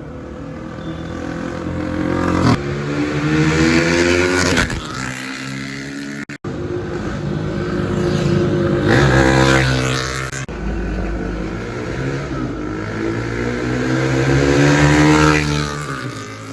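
Exhaust note of a KTM RC390's single-cylinder engine through a Barrel Exhaust Rouge aftermarket end can with a de-cat mid pipe. The engine is revved up three times, the pitch rising and dropping back each time.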